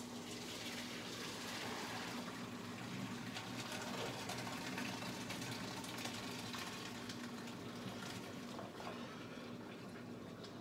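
Water running into a stainless kitchen sink, a steady rushing that starts suddenly and dies away near the end, with small clinks in the sink.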